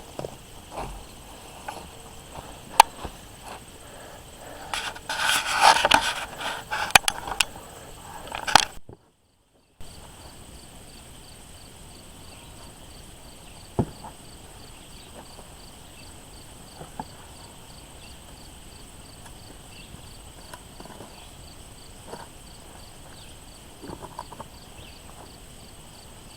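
Digging in garden soil for potatoes: scraping and crunching, loudest for a few seconds about five seconds in, then only scattered knocks. Under it runs a steady high chirring of insects with a regular pulsing chirp. The sound drops out completely for about a second near nine seconds.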